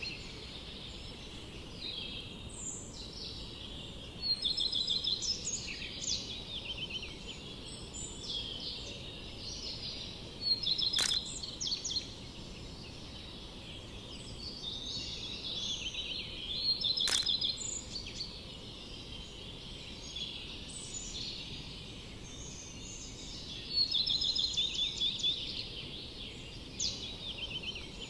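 Songbirds singing, with repeated quick chirping trills coming and going over a steady low background rumble. Twice a sharp click cuts through.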